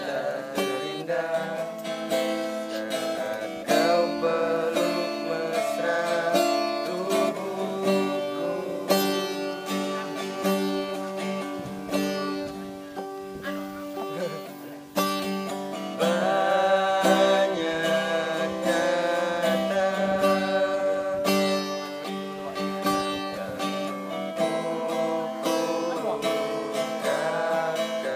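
Acoustic guitar strummed as accompaniment while a man sings along in phrases. About halfway through the singing drops back briefly and the guitar carries on more quietly, then the voice returns.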